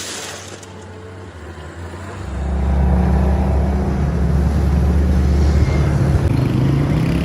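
A motor vehicle's engine running close by: a low rumble comes in about two seconds in and then holds steady.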